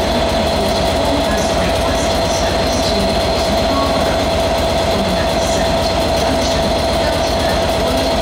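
British Rail Class 67 diesel locomotive, with its two-stroke V12 EMD engine, idling while standing at the platform: a steady engine drone with a constant whine running over it.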